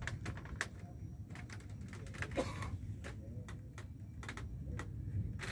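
Irregular light clicks and knocks, a few every second, over a steady low rumble.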